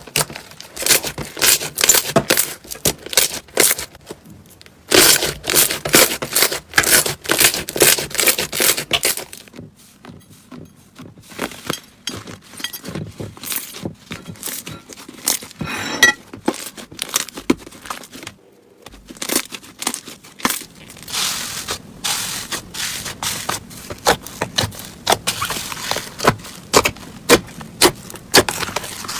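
Slime being squeezed and poked, giving a quick run of crackling, popping clicks that pause briefly twice.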